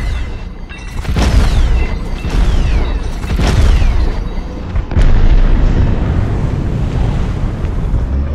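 Deep, slowed-down booming gunfire from an M134 minigun laid over background music, with falling-pitch sweeps about once a second. A fresh loud boom comes in about five seconds in.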